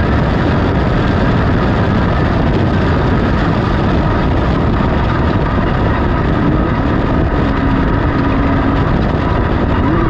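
Class 10 off-road race car running hard on a dirt course, heard from inside the cockpit: a steady, loud mix of engine and rough-road noise.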